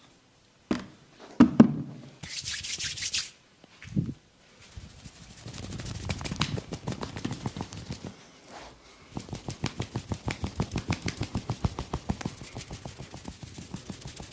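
Hands massaging bare skin close to the microphone: a few sharp knocks early, a short hiss, then steady rubbing, and from about nine seconds in rapid rhythmic strokes about five a second.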